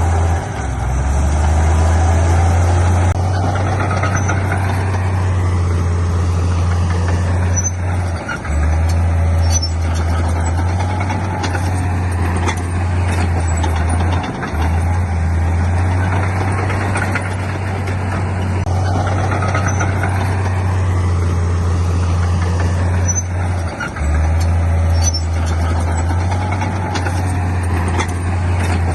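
Heavy diesel earthmoving machinery running steadily with a deep engine drone that dips briefly a few times, with faint higher squeaks and ticks over it.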